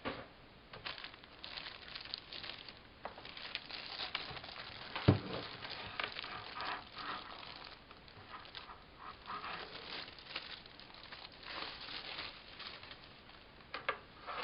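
Plastic packaging rustling and crinkling as a keyboard is unwrapped and handled, with irregular small clicks and one sharp thud about five seconds in.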